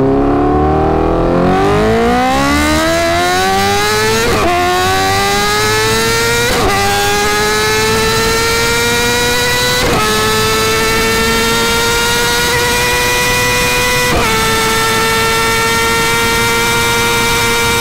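Honda CBR1000RR-R Fireblade SP's inline-four engine at full throttle, accelerating up through the gears toward about 300 km/h. The pitch climbs steadily, broken by four quick upshifts, each a short dip. After each shift the rise gets slower as the bike nears top speed.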